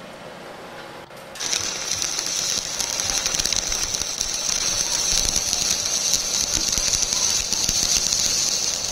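Electric arc welding: the arc crackling and hissing steadily, starting abruptly about a second and a half in.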